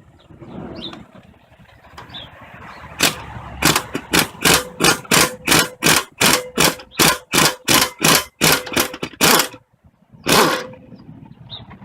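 Impact wrench hammering on a seized exhaust manifold bolt in a rapid run of short trigger bursts, about three a second, then one longer burst near the end.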